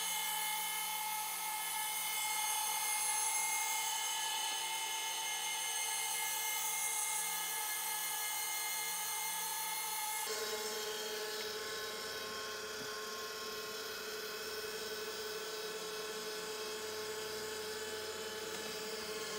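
Four 30-inch Windy Nation linear actuators, wired together, running in unison to lower a van bed platform: a steady electric-motor whine made of several tones. Its tone shifts slightly about ten seconds in.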